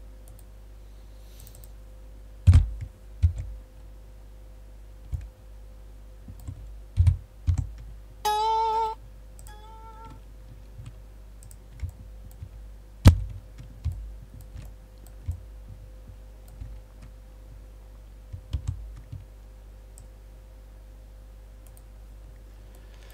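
Scattered computer mouse and keyboard clicks, a few of them sharp and loud. About eight seconds in a short pitched tone sounds for under a second, followed by a fainter, shorter one, over a steady low electrical hum.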